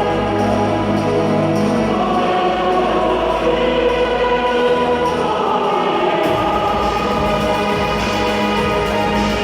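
Choral music: a choir singing long held chords over a full accompaniment, the sound shifting about six seconds in.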